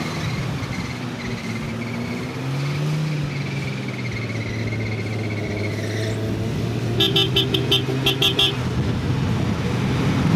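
Mercedes-Benz 280GE G-Class straight-six petrol engine running under load as the truck drives through a deep muddy puddle, revving up a little early on, with its wheels splashing through the water until about six seconds in. About two-thirds of the way through, a car horn sounds a quick run of short toots.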